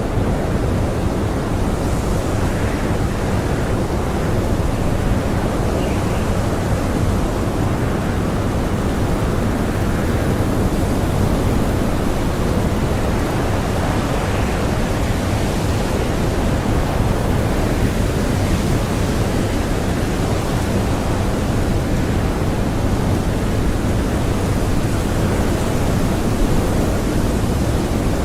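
Blizzard wind blowing in a steady, dense rush with no distinct gusts or pauses, heaviest in the low range.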